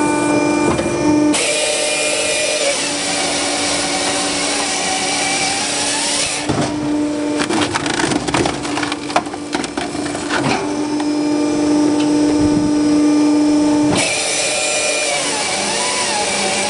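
TMS-45 firewood processor running under a steady hydraulic hum. A harsh hissing cut runs for several seconds, twice, from the hydraulic chainsaw biting through the log. Between the cuts, wood cracks and splinters repeatedly as the splitting ram forces a log section through the splitting cross.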